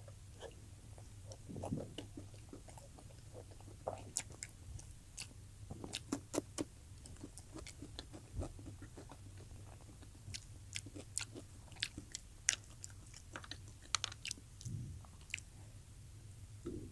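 A person chewing and biting food close to the microphone, a run of short wet clicks and crunches at irregular intervals.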